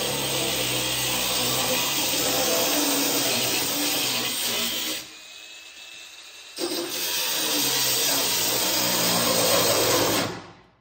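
Angle grinder cutting into the sheet steel of a car's rear wheel arch, a steady grinding with a spray of sparks. It lets off for about a second and a half around the middle, then cuts again and stops abruptly near the end.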